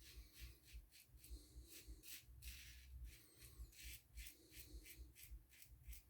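Faint, short scratchy strokes of a Gillette Ball-End Tech safety razor cutting stubble, about three a second, on an against-the-grain pass.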